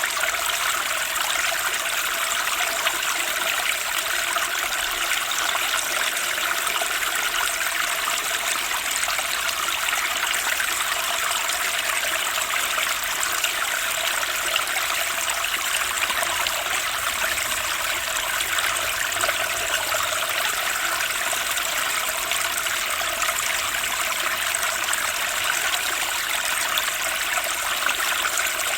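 Fast-flowing stream rushing and splashing over rocks in a steady, even torrent.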